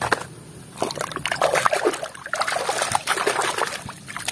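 Water sloshing and splashing in a plastic tub as a hand swishes a plastic toy around to wash off the mud, irregular and starting about a second in.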